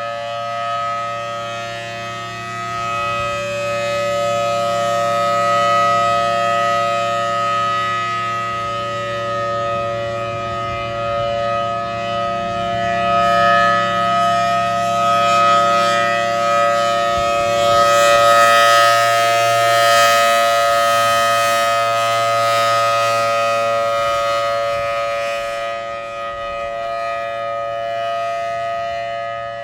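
Federal Signal Thunderbolt 1000AT outdoor warning siren sounding its steady full-alert signal: a dual-tone chord held at constant pitch, swelling and fading in level as the rotating horn sweeps around.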